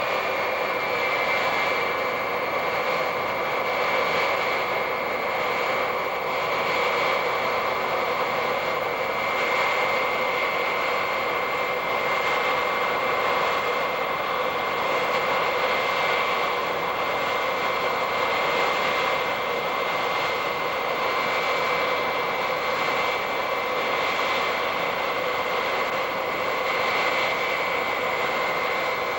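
Boeing 707's Pratt & Whitney JT3D turbofan engines running at low power as the jet taxis: a steady high whine over a constant rushing roar. The whine drops slightly in pitch about a second in, then holds.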